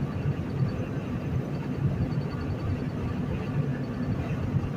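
Steady engine and road noise inside the cab of a semi truck cruising on the highway.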